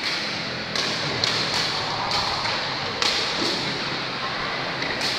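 Sepak takraw ball being kicked during a rally: several sharp thuds spaced irregularly over a steady background of crowd noise in the hall.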